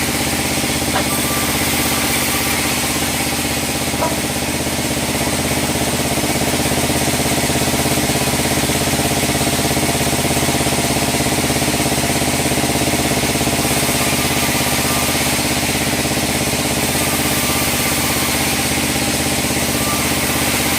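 Sawmill bandsaw machinery running at a steady, even hum, with two faint clicks about one and four seconds in.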